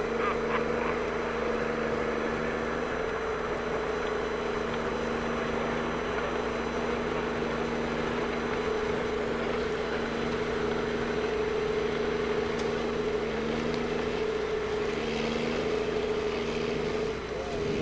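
A large engine running steadily at constant speed, a droning hum that holds one even pitch without revving.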